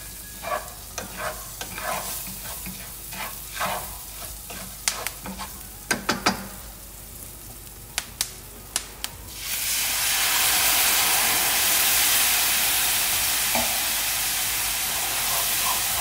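Utensil scraping and tapping in a frying pan as toasted small-spelt grains and shallot are stirred. About nine seconds in a loud sizzling hiss starts and keeps going: white wine hitting the hot pan to deglaze it.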